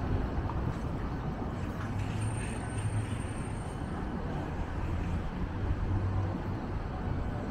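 Steady low rumble of city street traffic, with a faint high-pitched whine for a couple of seconds in the middle.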